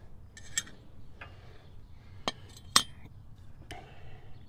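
About five sharp metallic clinks of steel parts and a combination wrench knocking together as the wrench is set on a mower deck spindle's bolts, the loudest a little before three seconds in.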